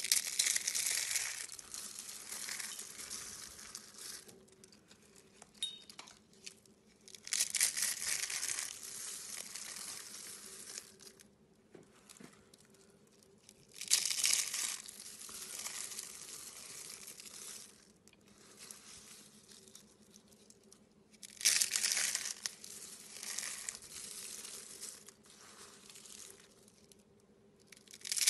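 Dry rolled soap curls crunching and crumbling as a hand squeezes bunches of them. The sound comes in four loud bursts about seven seconds apart, each trailing off into quieter crackling.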